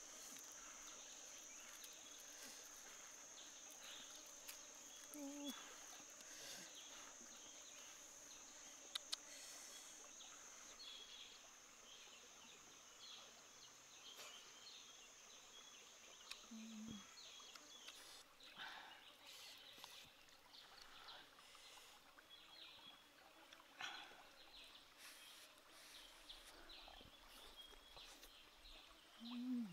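Near silence of quiet outdoor ambience: a steady high-pitched insect drone that stops about two-thirds of the way through, scattered short bird chirps, and three brief low hums of a voice.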